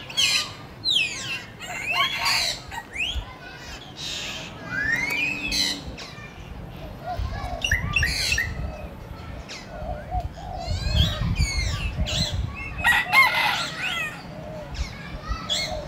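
Birds chirping and calling: many short whistled calls that glide up and down in pitch, coming thick and fast, busiest near the end.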